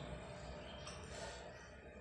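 Faint soft squishing of fingers mixing rice with fish curry on a plate, a couple of light smears of sound about a second in, over steady background noise.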